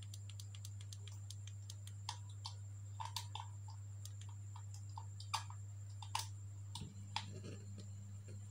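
Steady low mains hum from a home-built transistor power amplifier through its test speaker, with a dozen or more scattered sharp clicks and crackles while the input is being plugged in. The hum grows a little stronger near the end.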